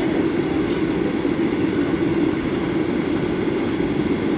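Steady low rumble inside the cabin of a Boeing 737-800 taxiing, from its CFM56-7B turbofan engines at low thrust and the landing gear rolling on the taxiway.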